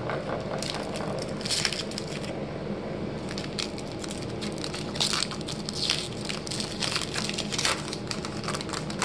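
Plastic wrapper of a trading-card pack crinkling and crackling as it is cut and torn open, in a dense run of irregular crackles with a few louder ones.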